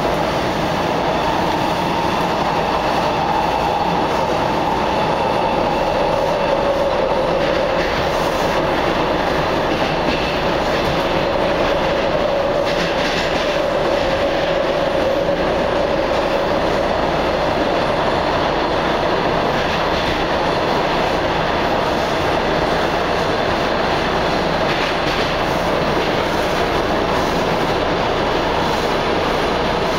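Cabin noise inside a Washington Metro 3000 Series subway car running through a tunnel: a steady rumble of wheels on rail, with a faint whine whose pitch slowly drifts.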